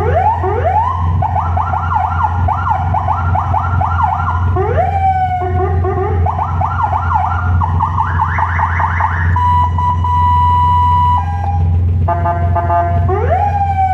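CJB LYA 100W electronic vehicle siren cycling through its tones: a rising wail, then quick repeated rising sweeps, a steady held tone for a couple of seconds about ten seconds in, and rising sweeps again near the end, over a steady low hum.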